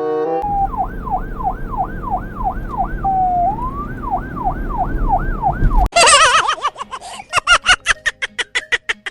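Electronic police-style siren yelping in quick rising-and-falling sweeps over a low rumble. About six seconds in it switches abruptly to a faster, choppier pulsing siren tone.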